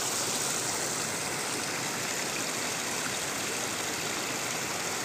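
Steady rushing of water flowing in a shallow irrigation channel, an even sound with no distinct events.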